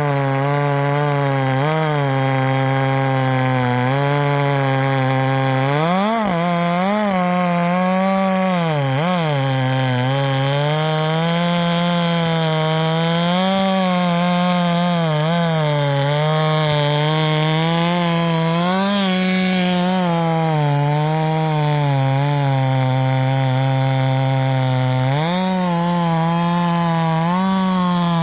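Husqvarna 564XP two-stroke chainsaw running at full throttle, cutting through wood. The engine note sags and recovers a couple of times as the chain loads in the cut, and rises near the end.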